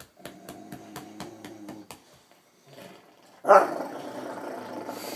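Rottweiler–Newfoundland mix dog growling with excitement, not aggression. A low, pitched growl with sharp clicks over it runs for the first couple of seconds. From about three and a half seconds in, a much louder, rougher growl holds on.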